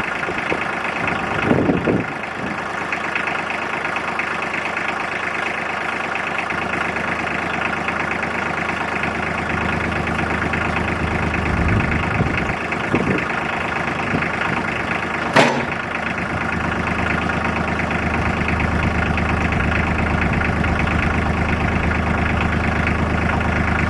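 Tractor engine running steadily, its low note growing stronger in the second half, with a single sharp knock about two thirds of the way through.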